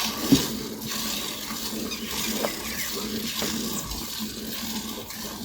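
Liquid running and splashing steadily, like water filling a container, with a few light knocks.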